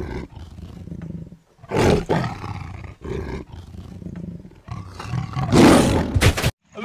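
Dubbed-in tiger roar sound effect: a loud roar about two seconds in and a louder, longer one near the end, with lower rumbling between.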